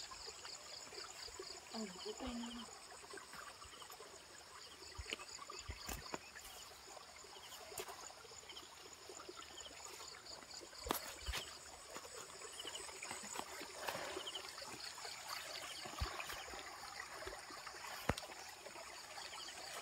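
Steady high-pitched insect chorus with pulsing chirps, over light rustling and a few soft knocks, with faint voices now and then.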